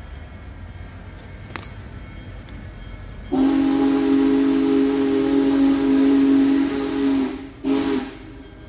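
Union Pacific 4014 Big Boy steam locomotive's chime whistle sounding a long blast of several tones together, then a short blast, as the locomotive approaches out of sight.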